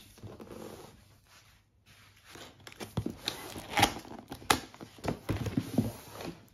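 Large cardboard box being handled and opened: scuffing and rustling with several sharp knocks, the loudest a little after the middle, after a quieter start.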